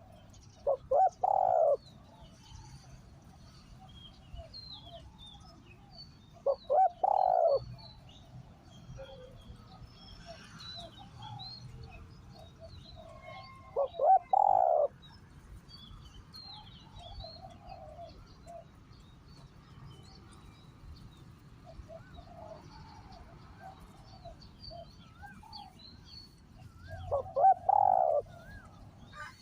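Spotted dove cooing: four short coo phrases, each about a second long, spaced several seconds apart. Small birds chirp faintly in the background.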